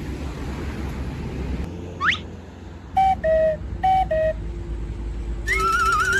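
A low vehicle-like rumble, then a short rising whistle and two pairs of falling two-note horn tones. Near the end comes a wobbling tone that rises in pitch, over a steady hum.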